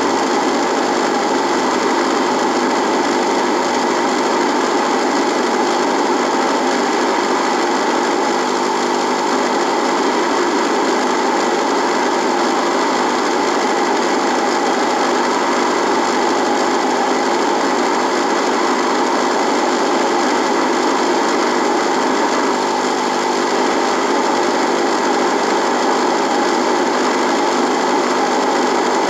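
Radio buzzing: a steady electrical buzz mixed with static hiss, holding level without change.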